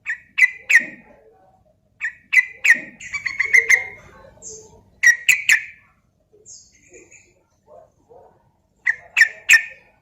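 Yellow-vented bulbul (trucukan) singing: four short bursts of quick, bubbly chirping notes, a couple of seconds apart.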